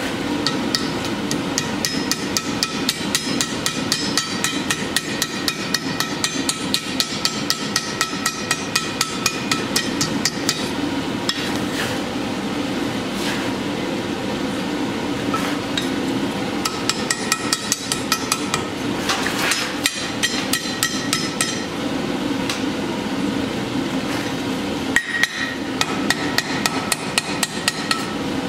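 Hand hammer striking hot sheet steel over an anvil horn, curling it into a cone for a candle cup: quick regular blows at about three a second. The hammering comes in three long runs, with only a few scattered blows in a pause in the middle, over a steady low hum.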